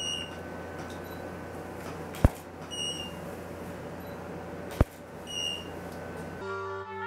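Two sharp camera shutter clicks about two and a half seconds apart. Each is followed about half a second later by a short high electronic beep, a studio flash signalling that it has recharged and is ready to fire again. A steady electrical hum runs underneath, and brass music starts near the end.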